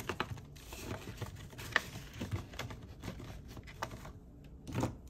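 Banknotes and a paper cash envelope being handled: short rustles and light ticks of paper, with a louder rustle near the end.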